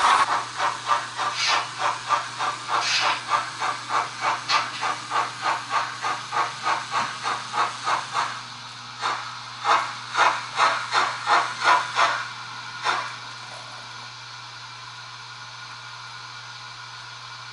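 Model steam locomotive's sound decoder chuffing in a steady beat of about two to three exhaust beats a second, stopping briefly partway through, then starting again and ending with a single last chuff, after which only a faint steady hiss remains.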